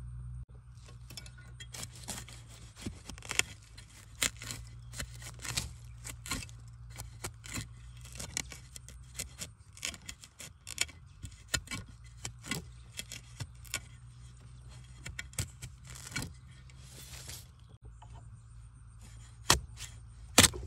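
Metal digging blade scraping and chopping into wet soil and leaf litter around a bamboo shoot, in irregular strikes about one or two a second, the two loudest near the end.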